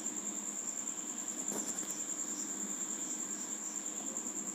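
A cricket trilling steadily in the background: one high, even, finely pulsed note, with a faint click about a second and a half in.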